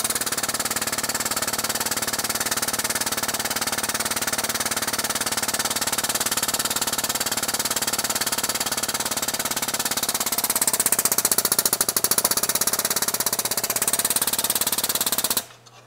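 Air-over-hydraulic pump chattering rapidly and steadily as it drives the hydraulic hole punch's ram through 11 gauge steel plate. It grows louder about ten seconds in, as the punch works through the plate, and cuts off suddenly near the end.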